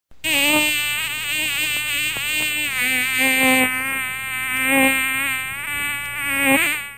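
Buzzing of a flying insect, its pitch wavering up and down as it moves.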